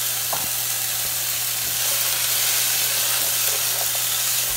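Chopped onion and bell peppers sizzling steadily in hot olive oil in a frying pan, stirred with a spatula, with a light knock about a third of a second in.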